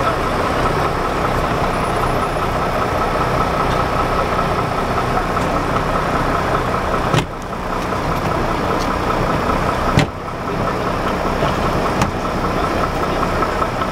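A motor vehicle engine idling steadily, with three sharp knocks in the second half.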